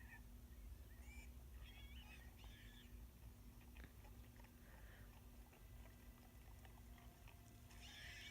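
Near silence: quiet room tone with a steady low hum and a few faint short chirp-like sounds.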